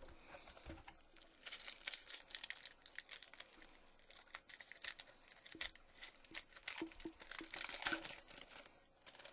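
Topps Chrome football card pack wrapper being torn open and crinkled in the hands: a dense run of crackles and rustles, loudest about two seconds in and again near the end.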